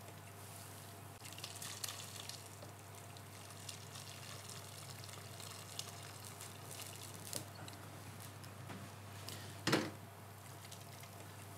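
Crab-shell and vegetable bisque base poured from a cast-iron pot through a conical metal sieve into a pan: faint trickling and splashing of liquid with scattered light clicks. Near the end, one louder knock as the pot is set down.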